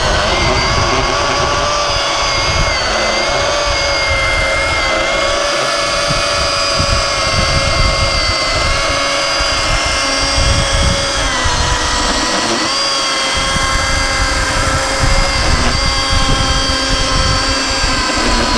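Milwaukee M18 Fuel cordless chainsaw, its brushless electric motor running steadily with a high whine as the chain cuts through a large log. The pitch dips briefly under load about two-thirds of the way through, then recovers.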